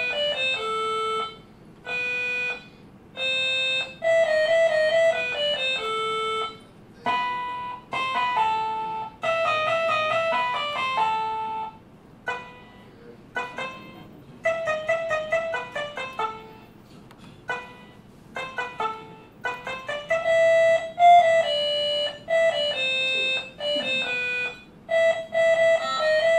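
Apple IIc generating music in software with the DMS synthesizer program, playing back a MIDI file one note at a time. The tune comes in short phrases with brief gaps, and the instrument voice changes as the MIDI channel is switched.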